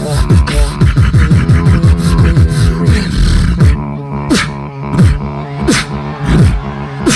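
Two beatboxers performing together into microphones: a fast, dense pattern of vocal kick drums, hi-hats and quick falling bass sweeps over a steady bass drone. Near the four-second mark it thins out to sparse snare hits, each with a deep falling bass note.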